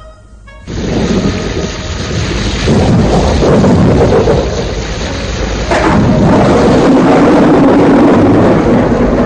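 Loud roar of a large waterfall, setting in sharply about a second in and swelling louder twice.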